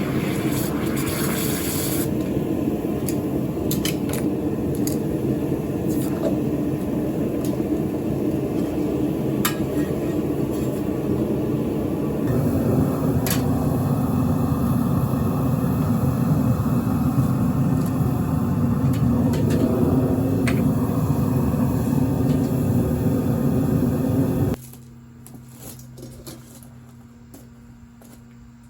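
Metal-melting furnace's burner running with a steady rushing noise and scattered light clicks. The noise gets louder about halfway through and cuts off suddenly near the end, leaving a faint hum.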